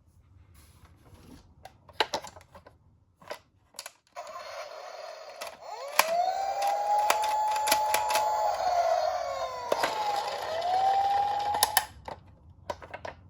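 Toy police car's electronic siren sounding. The single tone rises, holds, falls away and rises again over a hiss and many clicks, starting about four seconds in after a few isolated clicks, and it stops shortly before the end.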